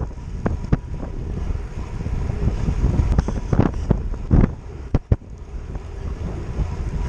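Wind buffeting the microphone of a handlebar-mounted camera on a road bike riding along a wet road, with tyre noise underneath. Several short knocks break through, the loudest about four and a half seconds in.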